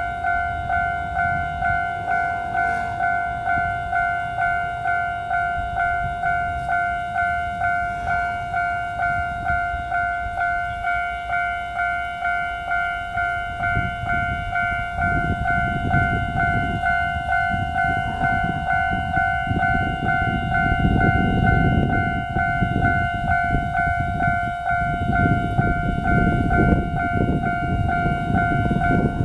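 Level-crossing warning bell ringing in a steady electronic ding, about two a second. From about halfway through, a TRA DR3000 diesel multiple-unit express passes over the crossing: its diesel engines and the wheels clattering over the rails sound under the bell, loudest a few seconds after it arrives.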